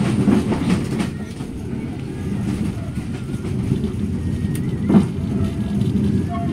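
A passenger train running along, a steady low rumble of wheels and running gear, with a single sharp knock about five seconds in.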